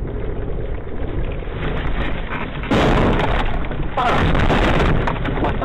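Steady road and engine rumble of a moving car heard from inside, then two loud bursts of harsh noise, each about a second long, about three and four seconds in.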